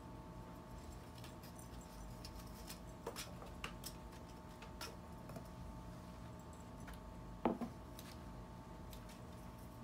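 A cat at play with a wand toy on carpet and a cardboard scratcher makes scattered light clicks and taps, with one soft thump about seven and a half seconds in. A steady low hum of room tone runs underneath.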